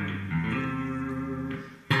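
Electric guitar played with two-handed tapping, its notes ringing over held low notes; the sound fades away about a second and a half in, then a louder guitar passage cuts in abruptly just before the end.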